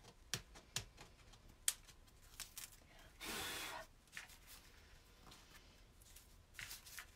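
Quiet handling of a hardcover book case: a few light taps and clicks of the boards and spine piece against the table, a brief paper rustle about three seconds in, and small paper rubbing sounds near the end.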